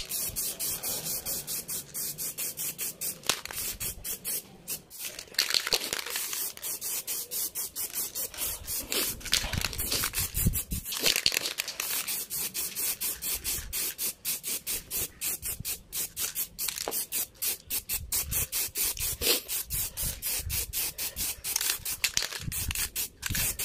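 Black aerosol spray paint hissing from a Bosny spray can as it coats a motorcycle front fender. The hiss flutters in rapid short pulses throughout.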